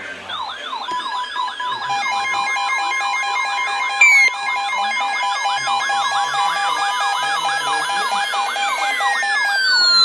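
Several weather alert radios sounding their warning alarms at once: fast siren-like wails rising and falling, layered over steady and pulsing beeps. A brief louder falling chirp cuts in about four seconds in.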